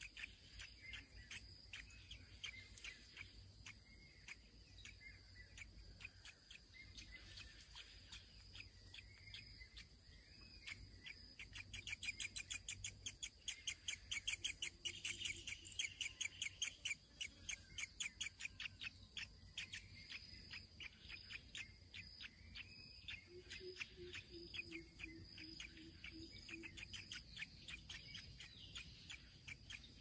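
Birds calling and chirping over a steady high-pitched insect drone, with a fast run of rapid ticking calls, loudest a little before the middle.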